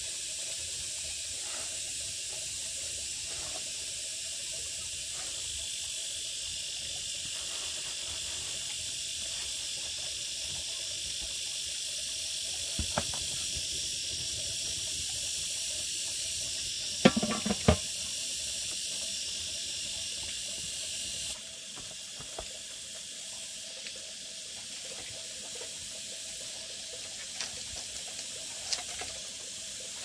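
Steady hissing of steam from a large pan cooking on a wood-fired earthen stove. A few sharp metal clanks sound a little past halfway as the pan or its lid is handled.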